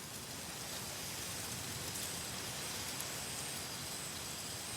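Steady tropical forest ambience: an even, rain-like hiss with a faint high-pitched whine that comes and goes near the top.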